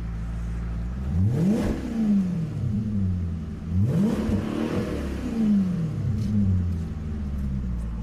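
Maserati GranTurismo 4.2-litre V8, heard from inside the cabin, idling in Park and revved twice. Each time the revs climb quickly to a peak and then fall slowly back to idle, once about a second in and again about four seconds in.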